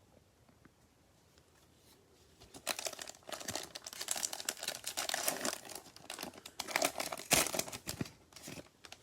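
Cellophane wrapper of a football trading-card cello pack being torn open and crumpled. The crinkling starts about two and a half seconds in and goes on for several seconds, with one sharp, loud crackle near the end.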